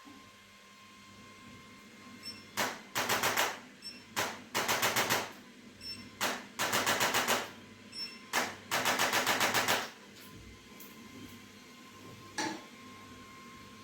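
Rapid mechanical tapping in bursts: four runs of about a second each at roughly ten taps a second, with a few single short knocks between them, over a faint steady hum.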